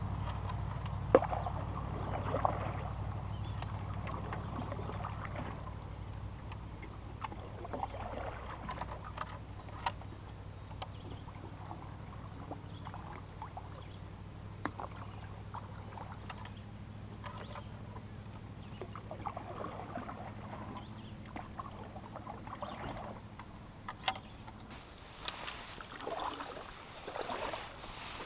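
Canoe being paddled on calm water: a wooden paddle dipping and pulling, water swishing and dripping, with occasional sharp knocks against the hull. A low steady hum fades out over the first several seconds.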